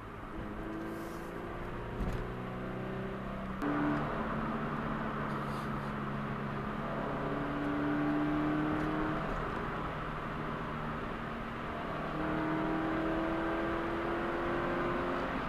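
Subaru BRZ's flat-four boxer engine running under way, its tone climbing slowly in pitch, with a sudden change in tone about four seconds in.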